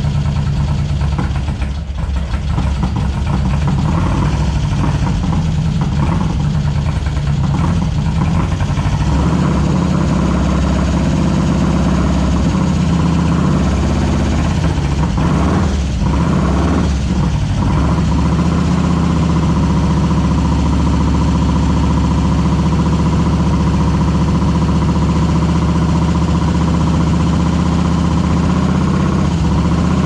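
Kadron dune buggy's Volkswagen air-cooled flat-four engine idling steadily, just after start-up. Its note shifts slightly about a third of the way in, with a brief dip in level a little past halfway.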